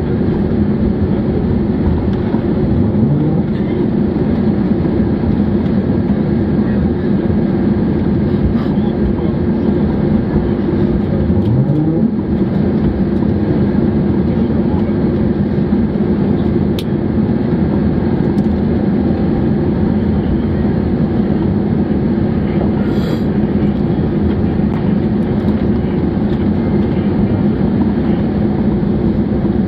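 Airbus A321 cabin noise by the wing on approach to the runway: steady engine and airflow noise, with the engines' pitch rising briefly twice, about three seconds in and again about eleven seconds in.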